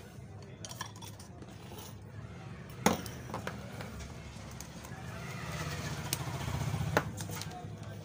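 Sharp clicks and light clinks of wires and a small circuit board being handled. The loudest click comes about three seconds in and another near seven seconds, over a low steady hum.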